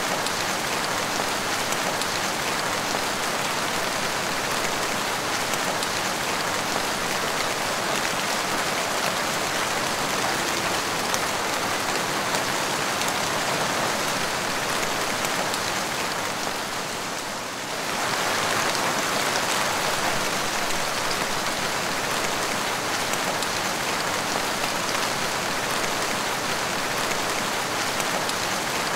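Steady rain falling on a wet tiled porch floor, the drops splashing on the tiles. It softens briefly about two-thirds of the way through, then comes back as before.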